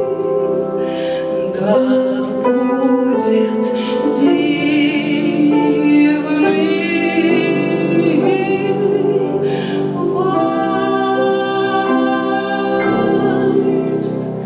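A woman singing a Russian romance in a full, classical style with grand piano accompaniment, holding long notes with vibrato. The music fades near the end as the song closes.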